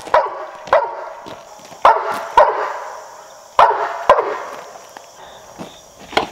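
Labrador retriever barking about six times, loud and in quick pairs, eager for a ball to be thrown; the barking stops after about four and a half seconds.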